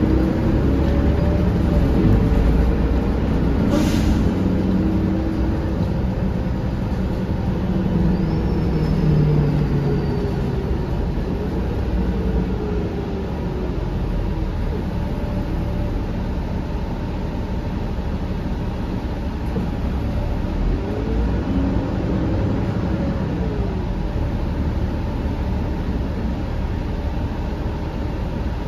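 2013 Gillig BRT transit bus with a Cummins ISL9 diesel engine under way, heard from inside the cabin: a steady low engine and road rumble with faint whining tones that rise and fall in pitch. A brief sharp click comes about four seconds in.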